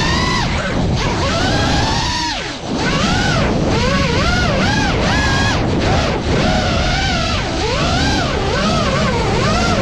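FPV quadcopter's brushless motors and propellers whining, the pitch rising and falling over and over as the throttle is worked. Near the middle it drops away low for a moment, then climbs again.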